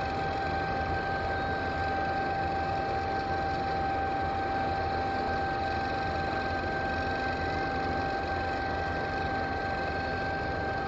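Heavy construction machinery running steadily: an even mechanical noise with a constant high whine.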